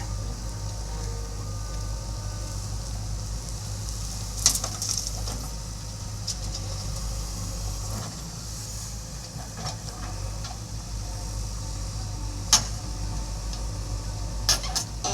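Diesel engine of a JCB backhoe loader running steadily at work, with a few sharp knocks: about four seconds in, about twelve seconds in and near the end.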